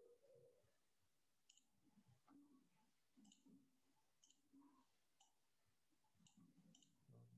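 Near silence, broken by a handful of faint computer mouse clicks spread over several seconds.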